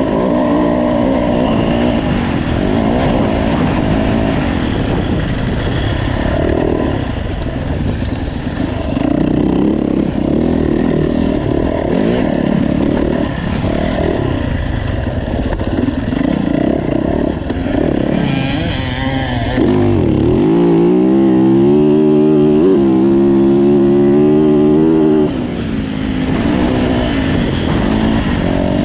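Yamaha dirt bike engine ridden hard off-road, its pitch repeatedly rising and falling with throttle and gear changes. About twenty seconds in it winds up and holds a steady high note for several seconds, the loudest part, then backs off.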